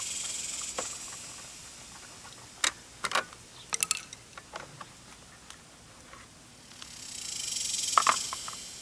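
Light clicks and knocks of tools and small parts being handled while a cover is taken off a small engine to get at the carburetor. A high, insect-like buzz fades out in the first second and swells back near the end.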